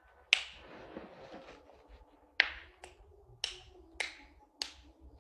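Six sharp clicks or snaps at uneven intervals, the first and second loudest, each with a short ringing tail.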